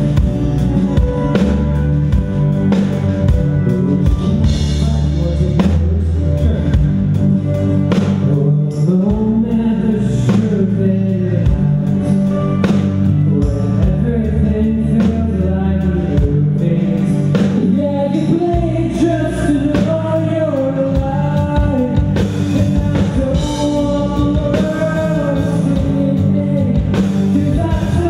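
Live rock band playing a song with drum kit, guitar and a singer's voice over them, played at full level.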